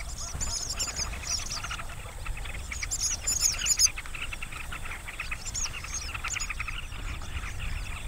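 A large mixed flock of birds, carmine bee-eaters among them, calling continuously over one another as they swoop after swarming termites: many short overlapping calls, with bursts of higher twittering near the start and again about three seconds in.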